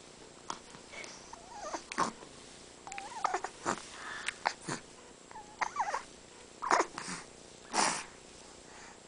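Young baby making short coos and breathy little vocal sounds, a dozen or so brief noises with pauses between them.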